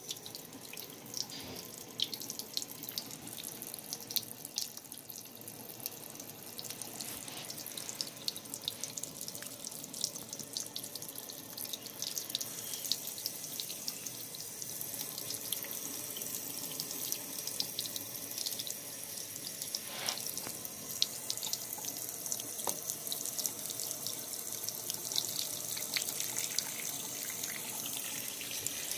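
Bathroom tap running a thin stream into a porcelain sink, the water splashing steadily on the basin and drain, with small dripping splashes throughout. The flow starts right at the beginning.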